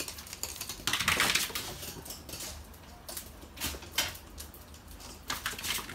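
Small dog's claws and paws pattering and clicking on a hard floor as it runs, with a louder scuffling noise about a second in.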